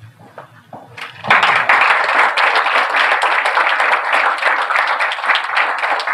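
Audience applause, many hands clapping, breaking out about a second in and continuing steadily.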